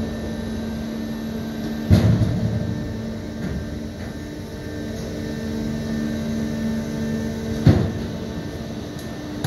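Antonov An-124-100 landing gear being cycled on jacks: a steady machine hum, with two heavy clunks from the gear mechanism, one about two seconds in and one near the end.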